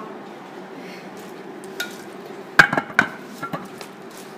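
Paper coffee cups and glasses being gathered up from a table: a few light knocks and clinks, the loudest two about two and a half and three seconds in, over a low steady room hum.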